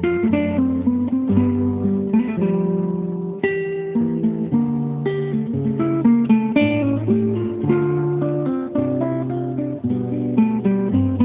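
Background music: acoustic guitar playing plucked notes over a bass line.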